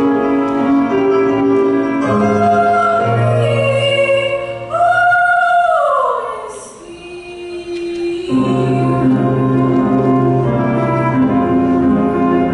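A young girl singing a solo with instrumental accompaniment. About five seconds in she holds a high note that slides down and fades, the music dips briefly, then the accompaniment and singing come back in about eight seconds in.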